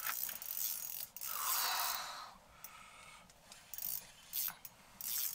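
Open-water fishing reel being cranked against a hooked lake trout, its gears whirring and clicking in uneven bursts, loudest between about one and two seconds in.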